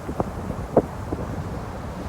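Sea wind buffeting the microphone, a low rumbling noise with two sharp thumps within the first second.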